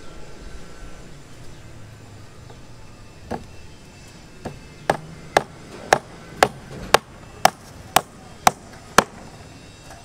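Hammer blows on the steel rebar of a column cage: about ten sharp, ringing metal strikes at a steady two a second, starting a few seconds in.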